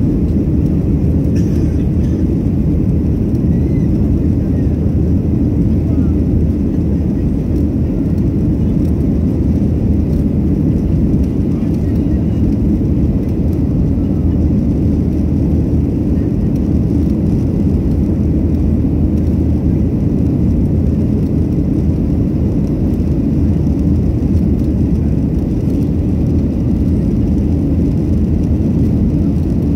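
Cabin noise inside a Boeing 737-700 climbing after takeoff: the steady, even rumble of its CFM56 turbofan engines and airflow, heard from a window seat over the wing.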